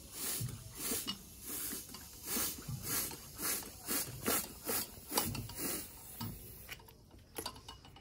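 Hand bicycle pump worked in quick strokes, a hissing rasp about twice a second, inflating a punctured inner tube. The strokes stop about six and a half seconds in, followed by a few clicks.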